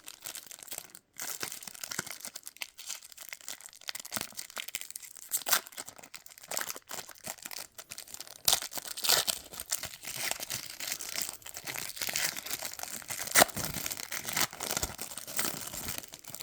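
A baseball card pack wrapper being crinkled and torn open by hand, with irregular crackles and a sharp crack a little after halfway.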